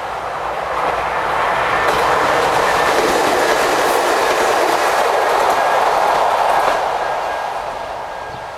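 Nagano Electric Railway train passing a level crossing. The running noise builds over the first two seconds, holds steady, and fades away over the last two seconds as the train moves off.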